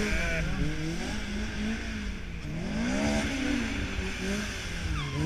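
Ariel Atom engine out on the auto-test course, revving up and down as it accelerates and slows, each rise and fall in pitch lasting about a second, over a low steady rumble.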